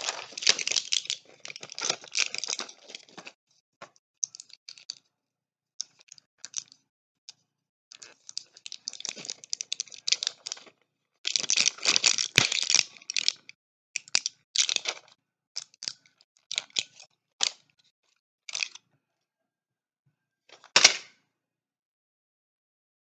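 Medicine packaging being handled, crinkling and crackling in irregular bursts of up to a few seconds with short pauses. There is one sharp click about half-way through and a last short crackle near the end.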